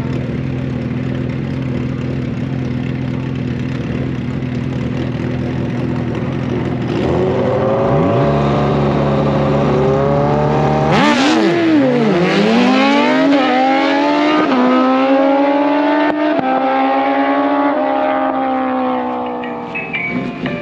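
Suzuki Hayabusa inline-four drag bikes idling at the starting line, then launching about seven seconds in. Their engine note climbs hard and falls back several times as they upshift and accelerate away.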